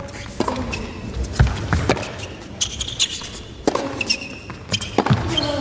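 Tennis rally on an indoor hard court: racket strings striking the ball, a sharp pop about once a second, echoing in the hall, with short high squeaks in between.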